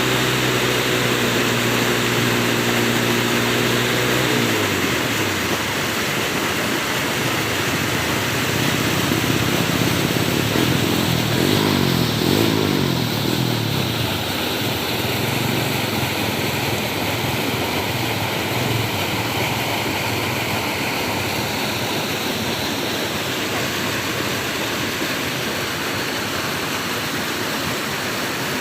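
Steady rush of flowing water, with the hum of an engine passing: a steady engine note in the first few seconds that drops in pitch and fades, and another engine note sweeping past about ten to fourteen seconds in.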